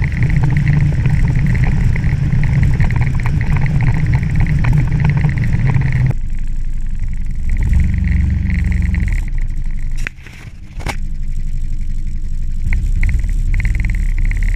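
A vehicle engine running while under way, with a steady noise of motor and travel. The sound shifts about six seconds in and dips briefly a little before the end.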